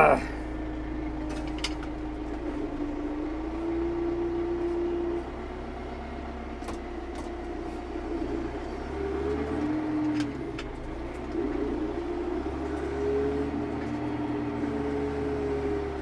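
Tractor engine running, heard from inside the cab, its hum rising and falling in pitch several times as the tractor works, with a few faint clicks.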